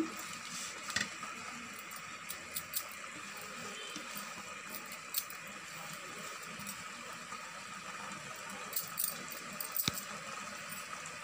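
A pot of prawn biryani cooking on a low flame: a steady soft hiss with scattered small crackles and ticks, and a sharper click near the end.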